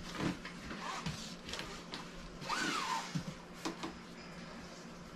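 Red fabric belt of a retractable-belt stanchion post being pulled out and reeled back in, faint sliding and whirring with light handling rustles and knocks. A brief rising-then-falling tone about two and a half seconds in.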